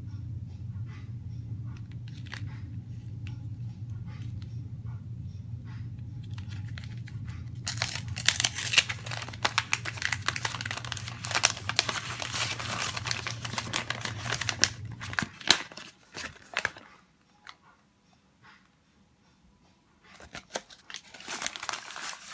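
A chocolate bar's foil inner wrap and paper outer wrapper crinkling and tearing as they are peeled open. After faint handling rustles, a long stretch of loud crinkling begins about a third of the way in, and a shorter burst follows near the end. A steady low hum runs under the first two-thirds and then stops.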